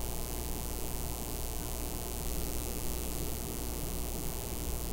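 Steady low electrical hum with an even hiss: background room tone, with no distinct handling sounds.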